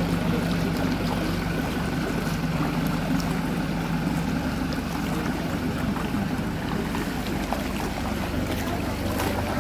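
Several people wading barefoot through ankle-deep floodwater, feet sloshing and splashing, over the steady low hum of a motor vehicle's engine running.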